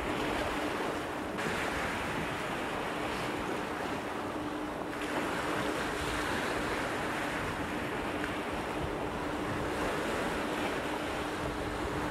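Surf washing in among shoreline rocks, a steady rushing noise, with wind on the microphone and a faint steady hum underneath.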